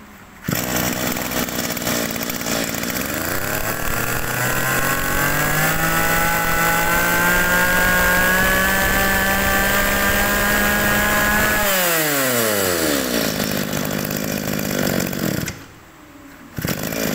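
Zenoah TK2600 two-stroke brush-cutter engine starts and idles, then is revved up to a steady high speed with a rising whine. It drops back to idle and cuts out, and near the end runs again briefly.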